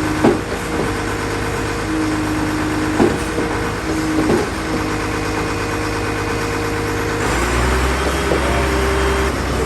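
Diesel engines of a concrete mixer truck and a concrete pump truck running steadily, with a few sharp knocks. The first concrete is being transferred from the mixer into the pump. About seven seconds in, the engine note deepens and grows louder.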